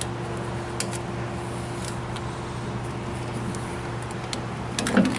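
Steady mechanical hum, like a shop fan, under scattered light clicks and taps of hands handling a brake caliper and zip ties at a wheel hub. A dull knock comes about five seconds in.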